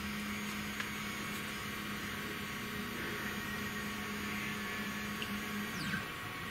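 Stepper motor of a 3018 desktop CNC router whining steadily as the Y axis jogs back about 50 mm, the tone gliding down as it decelerates and stops near the end.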